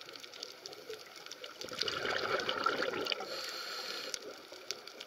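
Water noise heard underwater, with scattered sharp clicks; about a second and a half in it swells into a louder rushing for over a second, then eases back.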